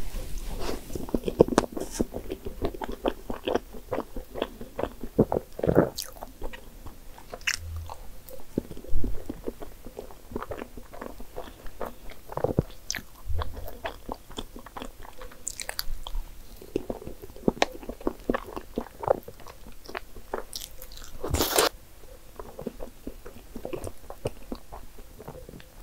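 Close-miked mouth sounds of eating soft soufflé pudding from a spoon: wet smacking and chewing with many small clicks. A few sharper clicks come from the metal spoon against the dessert cup.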